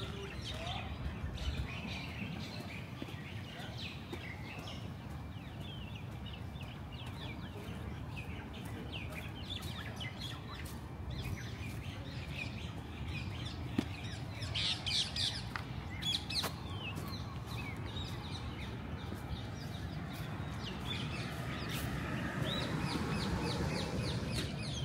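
Many small birds chirping and calling, with a cluster of louder chirps about midway, over a steady low background rumble.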